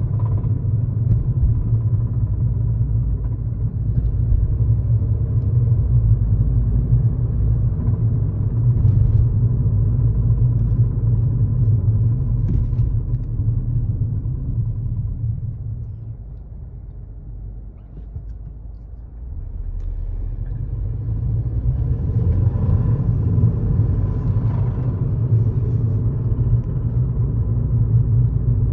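2015 Mercedes B250's 2.0-litre turbocharged four-cylinder engine running with a low rattle, which the owner takes for a spun bearing. The sound fades for a few seconds past the middle, then comes back at full level.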